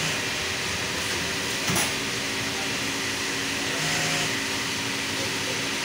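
Steady mechanical hum and hiss of an automatic back-pocket sewing machine and the garment-factory machinery around it, with one sharp clack about two seconds in.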